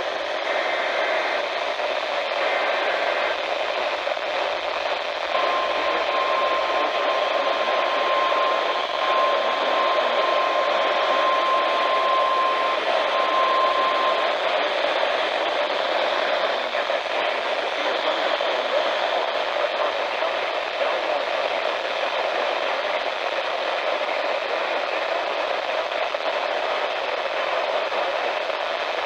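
Steady hiss of static from a weakly received radio station. About five seconds in, a single steady alert tone comes through the static for about nine seconds, dropping out briefly twice, then only static remains.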